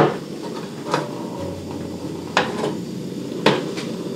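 A sharp knock, then three lighter knocks about a second apart: a frying pan being handled on a gas stove, knocking against the stove as it is lifted and tilted to spread the oil.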